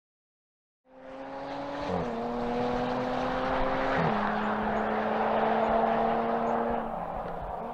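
Jaguar F-Type's engine pulling hard under acceleration, with two quick upshifts of its eight-speed Quickshift gearbox about two seconds apart; at each shift the note drops and then climbs again. Near the end the engine eases off and the sound fades.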